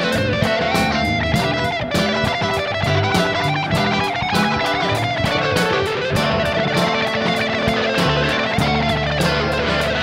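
Rock band playing an instrumental stretch with no vocals: electric guitar over bass and a steady drum beat.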